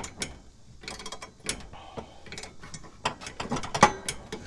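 Socket wrench ratchet clicking in irregular runs on a riding mower's blade bolt, with one louder click near the end.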